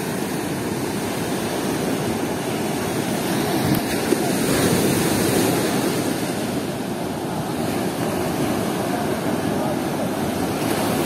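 Ocean surf breaking and washing on a sandy beach, a steady rushing that swells about four seconds in.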